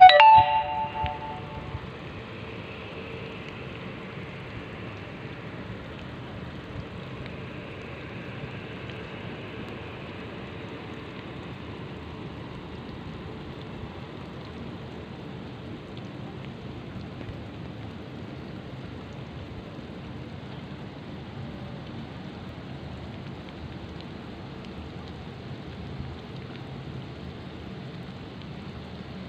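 Steady, even hiss of rain. It opens with a sudden loud ringing knock that fades over a second or so.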